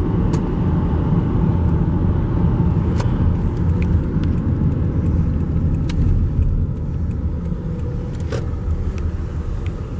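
Car cabin noise: the engine and tyres give a steady low rumble as the car slows to pull over, with a few light clicks and knocks.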